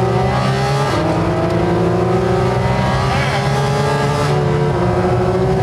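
Porsche flat-six engine at full throttle, its pitch climbing steadily, with quick upshifts about a second in and again near the end.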